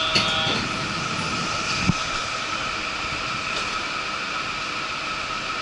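Yurikamome rubber-tyred automated guideway train running along its elevated guideway, heard from inside the front car: steady running noise with a constant whine, a click just after the start and a single short thump about two seconds in.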